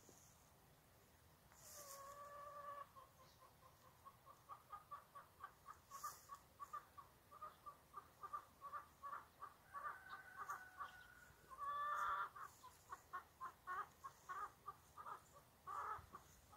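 A chicken calling, out of sight: one drawn-out call, then a long run of short clucks at about three or four a second, broken by a couple of longer calls.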